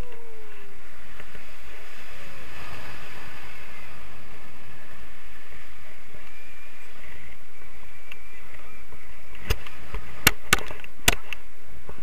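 Steady wind noise on a paraglider pilot's harness-mounted camera microphone in flight. A few sharp knocks come in quick succession near the end.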